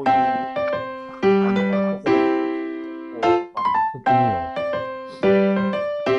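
Background music on a piano-like keyboard: notes and chords struck and left to fade, a new one every second or so.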